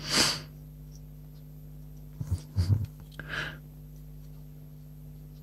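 A man's breath and small mouth noises: a short hissy exhale at the start, then brief murmured sounds and another breath a little after two seconds, over a faint steady hum.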